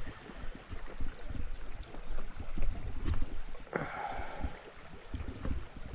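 Shallow river current rippling over a stony bed, with wind and handling bumps on the microphone and a short scraping noise a little past halfway.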